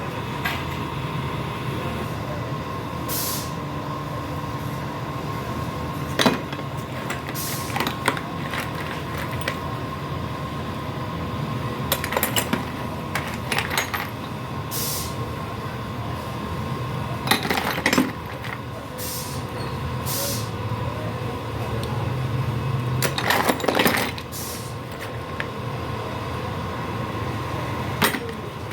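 Scattered metallic clinks and knocks, such as small metal parts being handled, over a steady mechanical hum with a constant high tone.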